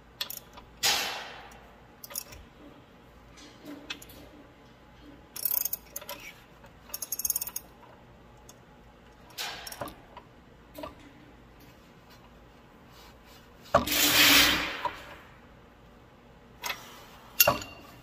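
Hand tools working the threaded gauge-wheel-arm bushing and bolt on a corn planter row unit: short runs of ratchet clicking and scattered metal clicks and clinks, with one louder rasping stretch of about a second near the end.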